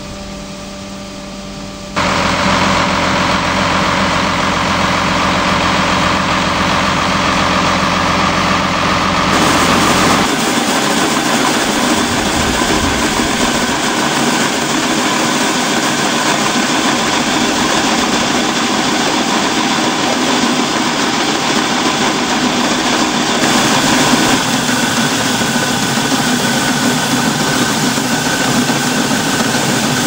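Tractor engine running alongside grain-handling machinery as tipping trailers unload barley at the grain store. It gets suddenly louder about two seconds in. A steady hum of several tones turns into an even rushing din about ten seconds in.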